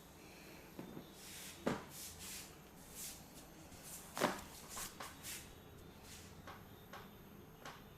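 Hands rubbing and brushing over hair and skin in a head massage, with soft swishes and small taps and two sharper slaps, one about two seconds in and a louder one about four seconds in.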